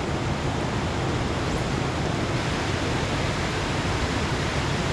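Steady, even rush of water: heavy rain falling together with fast-running creek water.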